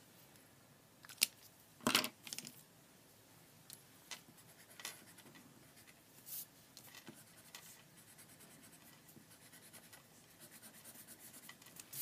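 Pencil scratching and tapping on paper in short strokes while drawing, with a few sharp clicks in the first seconds, the loudest about two seconds in.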